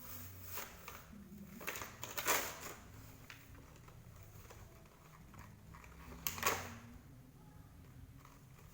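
Toy packaging being handled and opened: a few short crinkles and rustles of plastic, the loudest about two seconds in and again about six seconds in, over a low steady hum.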